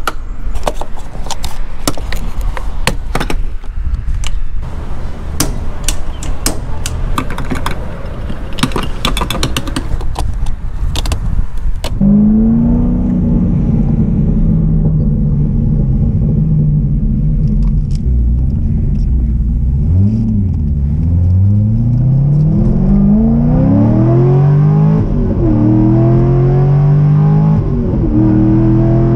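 Rattling and clatter, then a car engine that settles into a steady drone and, later, rises in pitch several times with sudden drops in between, as when accelerating through the gears.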